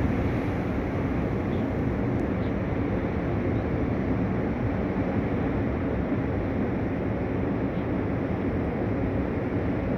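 Heavy sea surf breaking continuously, a steady dense wash of low noise with no single wave standing out.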